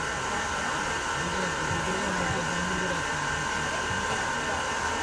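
A steady whirring hum, like a fan or air-conditioning unit running, with a man's low voice faintly audible beneath it.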